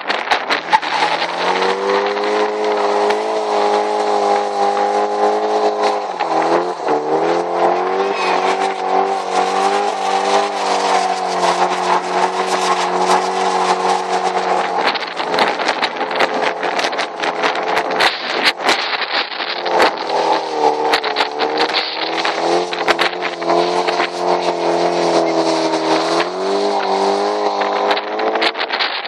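Nissan 240SX (S13) coupe's SR20DET engine held at high, steady revs during a burnout, with the hiss of the spinning rear tyres. The revs drop slightly about six seconds in, hold there, and climb back near the end.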